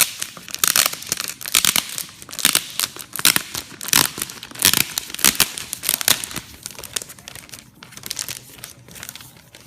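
Packaging wrap being crinkled and torn open by hand, in many quick, irregular bursts.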